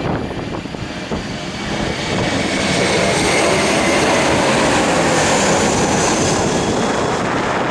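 Jet airliner passing low overhead on its landing approach: the engine noise swells about two seconds in and stays loud, with a high whine that drops in pitch as it goes by.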